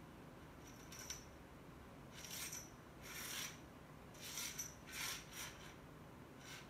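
Feather cat-teaser toy being jiggled on its line: a string of about seven faint, short, scratchy rustles.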